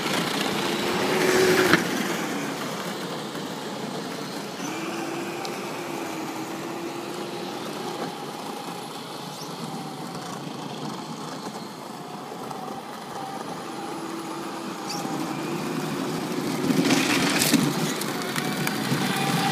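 Electric motors of children's battery-powered ride-on vehicles whining steadily as they drive, the pitch dipping and rising a little. A louder rattling rush comes as one passes close, about a second or two in and again near the end.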